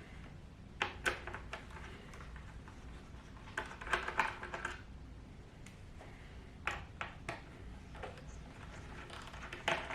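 Phillips screwdriver working the small screws out of a laptop's hard-drive bay: scattered light clicks and short rattling clusters of metal tip on screw heads and the plastic case, with a busier stretch about four seconds in.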